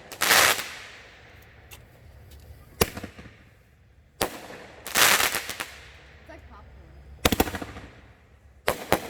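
Consumer firework cake firing: single sharp bangs every second or two, some followed by a crackling burst, and a quick string of bangs about seven seconds in.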